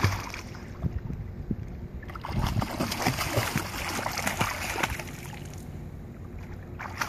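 A small child splashing while swimming across a pool, kicking and paddling, with the splashing heaviest through the middle of the stretch before easing off.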